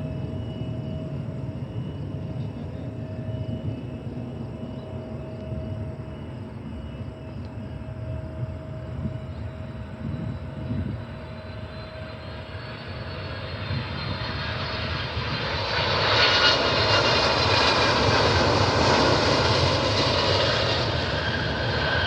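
FedEx Boeing 767 freighter jet on approach: a steady distant engine rumble that grows from about twelve seconds in to a loud roar with a high engine whine as the jet comes close, staying loud through the end.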